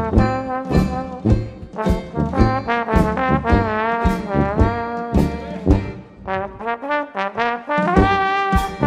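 Traditional New Orleans-style jazz band playing live, with the trombone prominent among the horns and some notes bending in pitch. Sousaphone, banjo and drums keep a steady beat underneath.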